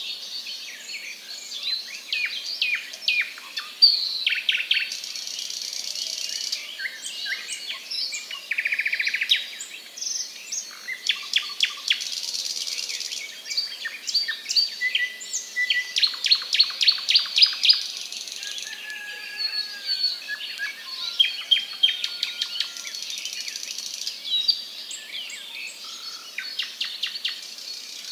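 Several birds chirping and singing over one another, with quick runs of high falling notes and short trills.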